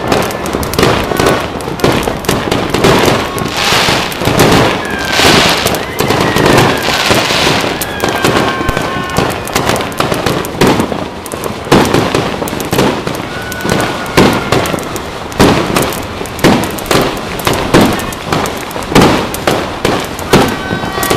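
Fireworks and firecrackers going off all over the city, a dense, continuous barrage of bangs and crackling pops with occasional short falling whistles.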